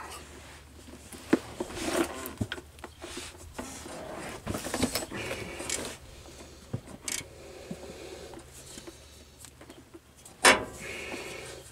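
Wrench being fitted to and turned on bolts under a truck: scattered metallic clicks, knocks and scraping, with a louder short noise near the end.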